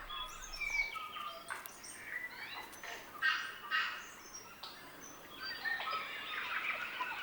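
Kea parrots calling: a string of short, harsh calls, the loudest a little after three seconds in, with busier overlapping calls toward the end.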